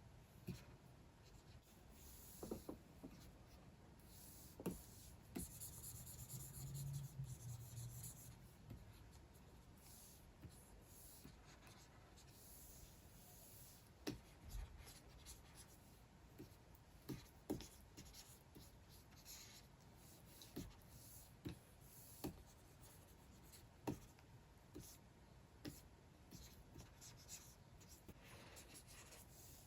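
Stylus nib scratching in soft strokes across the screen of a Wacom Cintiq 24 Pro pen display, with many light taps between strokes.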